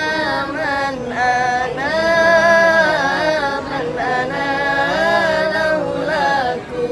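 A small group of men's and women's voices singing a sholawat, an Islamic devotional song, unaccompanied, with long held notes that bend in ornamented melodic turns.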